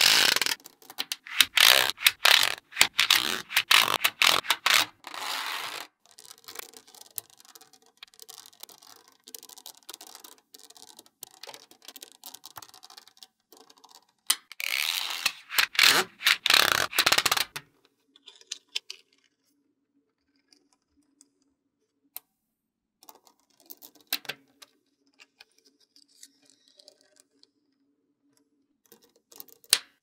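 Small magnetic balls scraping and clicking as sheets of them are slid off a paper card onto a layer of balls, with a rustle of the paper. The loud scraping comes in two spells, over the first several seconds and again around the middle; after that only scattered faint clicks.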